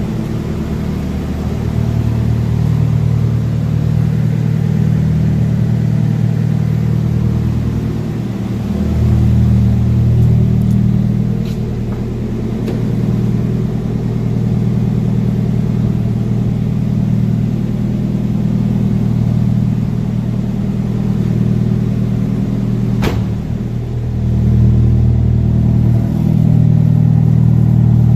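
Nissan SR20DET turbocharged 2.0-litre four-cylinder running at idle through a Blitz Nur Spec cat-back exhaust with a titanium test pipe. The engine note swells up a little a few times, as if given light throttle. There is one sharp click partway through.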